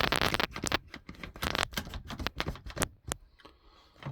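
Quick irregular clicks and rattles from a clock being handled and adjusted by hand, thickest in the first second and again about a second and a half in.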